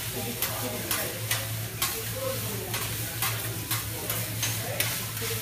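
Fried rice frying on a steel teppanyaki griddle, sizzling steadily while two metal spatulas chop and scrape through it, clacking against the hot plate about twice a second.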